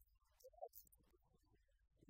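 Near silence: room tone with a low hum and a few faint small sounds.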